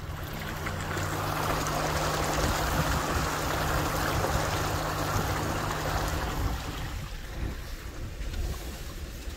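A 2022 Nissan Frontier's tires splashing through a shallow river crossing, water rushing against the wheels over the steady hum of the truck's engine. The splashing swells for a few seconds, then fades as the truck leaves the water, and the engine hum drops away about six and a half seconds in.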